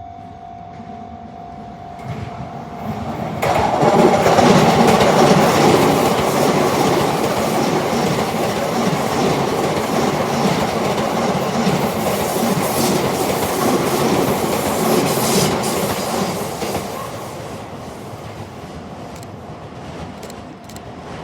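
Sotetsu 10000 series electric train passing a level crossing, wheels clattering over rail joints. It arrives suddenly and loudly about three and a half seconds in and dies away over the last few seconds. Before it arrives, the level-crossing warning bell is ringing.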